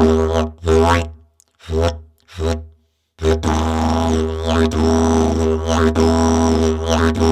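Plastic slide didgeridoo played as a steady low drone with shifting overtones. Under a second in, the drone breaks off into three short blown pulses, then stops briefly. It resumes about three seconds in.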